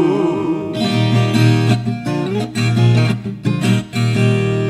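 Instrumental break in a música caipira song: acoustic guitars strummed and picked, over a steady low bass note.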